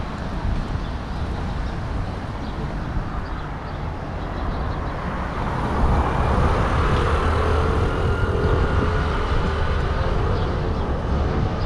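City street traffic at an intersection: a steady rumble of cars, with a vehicle engine growing louder about six seconds in as traffic moves past close by.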